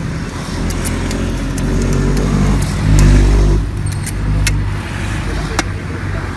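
A motor vehicle passing on the road: its engine hum builds to a peak about three seconds in, then eases off. Light metallic clicks of a stainless ice cream scoop against the cups and tub sound over it.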